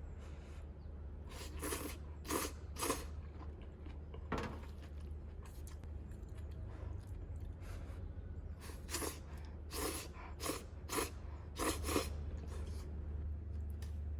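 Eating sounds from a person eating stir-fried udon: short, sharp mouth noises in two clusters a few seconds apart, over a steady low hum.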